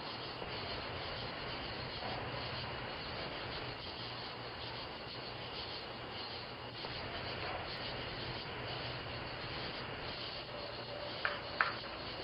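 Steady hissing background noise picked up through a doorbell camera's microphone, with two short beeps a fraction of a second apart near the end.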